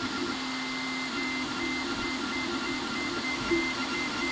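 Snapmaker Artisan 3D printer printing a calibration model: its stepper motors whine in steady tones that step up and down in pitch as the dual-extruder head moves, over a steady fan hiss.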